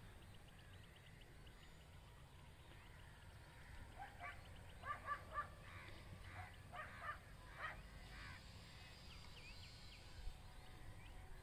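Quiet open-air background with birds calling faintly: a run of short calls about four to eight seconds in.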